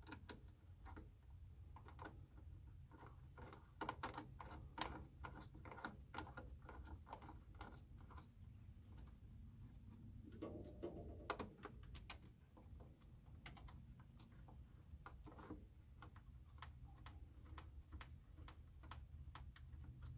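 Faint, irregular clicks and light taps of hand work on a garden tractor as bolts are started and parts handled, sometimes in quick little runs, over a low steady hum.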